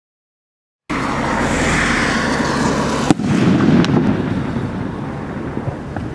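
Firework rocket from a consumer rocket pack: a hissing whoosh as it climbs, starting abruptly about a second in, then one sharp bang about three seconds in as the shell bursts, followed by a low rumbling echo with a few faint pops from the falling stars.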